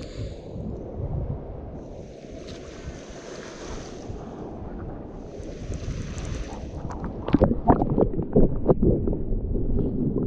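Wind buffeting the microphone over shoreline water, with two brief washes of hiss. About seven seconds in, a run of close knocks and bumps begins and is the loudest part.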